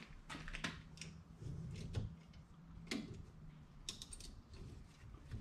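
Faint, scattered clicks and light rattles of tie-down straps and their buckles being undone from a kayak strapped onto a pickup truck, over a faint low hum.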